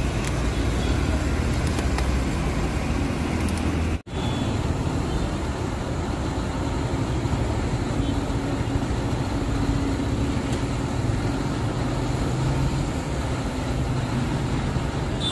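Diesel engines of large coach buses running at idle and moving slowly, a steady low rumble with traffic noise. The sound cuts out for an instant about four seconds in.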